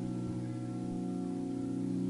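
Singing bowls ringing on, several overlapping held tones with a slow pulsing wobble.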